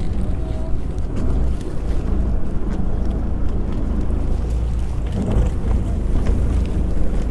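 Steady low rumble of wind buffeting the microphone, mixed with the engine of a small ferry boat running alongside the concrete breakwater.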